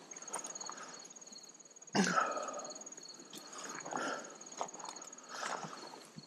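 Footsteps rustling through dry grass and weeds on a field-edge path, a soft swish about every one and a half to two seconds, the loudest about two seconds in. Insects trill steadily in the grass throughout.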